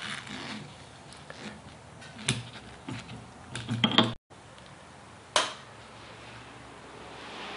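Scattered light clicks and knocks of handling. The loudest is a sharp click about five seconds in, and a cluster comes just before a brief dropout about four seconds in.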